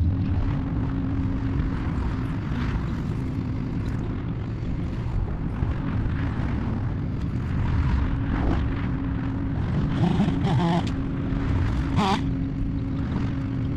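A motor or engine running steadily with a low rumble and a held hum, with a few brief higher wavering sounds near the end.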